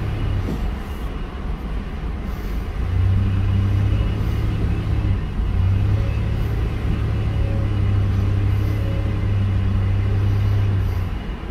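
Tuff truck's engine and exhaust droning as heard from inside the cab while driving at about 15 mph. The drone is softer for the first few seconds, then picks up about three seconds in and holds steady.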